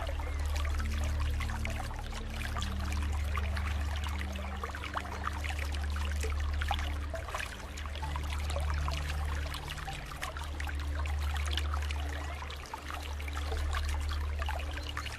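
Running water trickling and splashing in a steady stream of small droplet sounds. Low sustained tones sit underneath and shift to a new pitch every few seconds.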